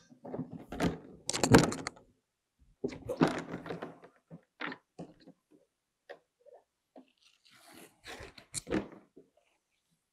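A folded plastic kayak and its Velcro strap being handled as the strap is wrapped around the bundle: irregular knocks, thuds and rustles, loudest about one and a half seconds in, with further bursts around three seconds and near the end.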